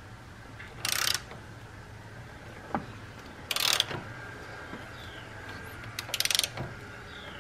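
Hand ratchet on the 22 mm crank pulley bolt clicking in three short bursts, about a second in, midway and near the end, as the crankshaft of a Subaru 2.5L engine is turned over by hand. The crank is being rotated two revolutions to check that the timing marks line up after a new timing belt.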